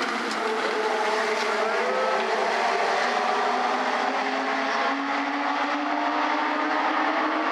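A pack of Legend race cars running together at racing speed, their Yamaha motorcycle engines making several overlapping engine notes whose pitches drift slightly up and down.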